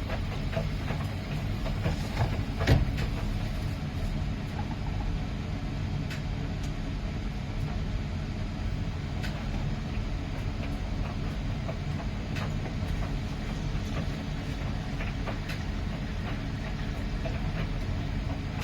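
Miele PW 6080 commercial washing machine running, a steady low rumble from the turning drum with scattered light clicks and one sharper knock about three seconds in.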